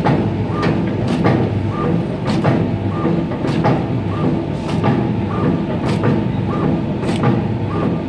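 An automatic frozen-meat slicing machine running, a steady motor hum with a sharp cutting stroke repeating evenly a little under twice a second.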